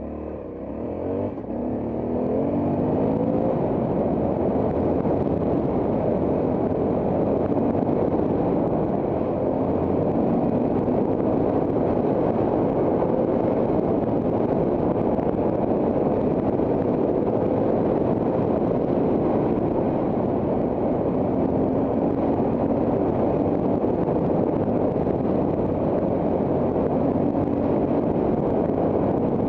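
Trail motorcycle engine pulling away, rising in pitch and level over the first couple of seconds, then running steadily as the bike rides along.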